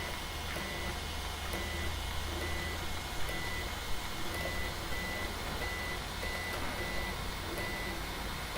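A steady run of short, evenly repeated high electronic beeps over a low steady hum.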